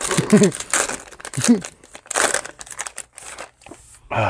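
Plastic wrapper of a Donruss Optic fat pack of trading cards crinkling and tearing as it is pulled open by hand and the cards are slid out, in a few ragged bursts.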